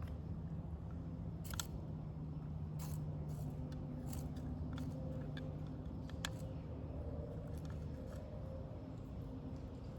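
Scattered small clicks and rattles of lures being picked through in a plastic tackle box, over a steady low hum.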